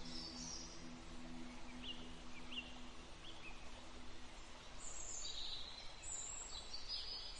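Birds chirping and twittering over a faint steady hiss, with the last held tones of a soft ambient music track fading out in the first three seconds.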